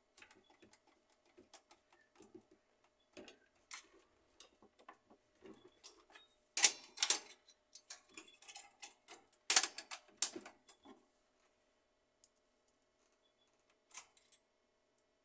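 Plastic and metal parts of a partly dismantled HP LaserJet 1300 laser printer clicking and tapping as they are handled and fitted by hand. Scattered light clicks build to a few sharp, louder clicks, two close together about halfway through and two more a few seconds later. After that it is mostly quiet, with one last click near the end.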